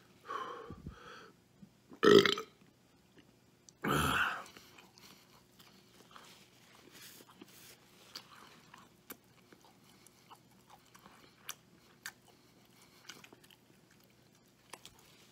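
A man burps loudly twice, about two and four seconds in, the first the louder, then faint chewing and small mouth clicks.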